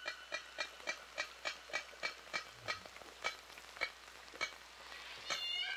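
Killer whale sounds: a steady train of clicks, about three or four a second, with a short call with several stacked tones near the end.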